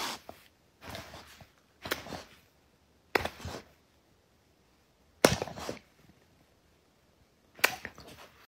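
Black Labrador sniffing at a person's face, about six short noisy snuffles spaced irregularly a second or two apart.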